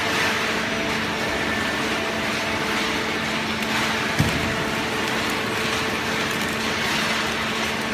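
Hydraulic baler's motor and pump running steadily with a constant hum, with a single knock about four seconds in.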